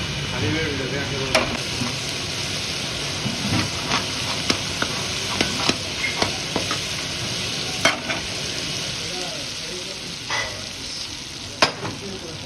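Mutton karahi sizzling in a steel karahi wok over a gas flame while a flat metal spatula stirs and scrapes it. Sharp metal clacks of the spatula against the wok come at irregular moments, the loudest near the end.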